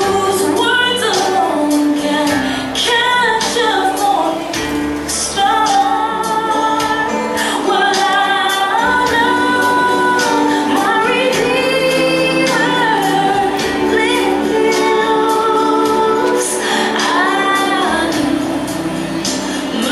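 A recorded song: a woman singing the lead over a backing track with a steady beat.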